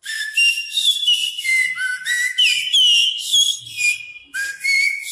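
A man mimicking a bird's song by whistling with his mouth: a quick string of short, high whistled notes that slide up and down in pitch.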